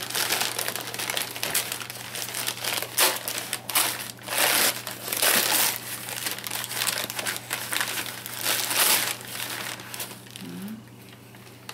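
Packaging being handled and unwrapped: plastic and paper crinkling and rustling in irregular bursts, louder in the middle and quieter near the end.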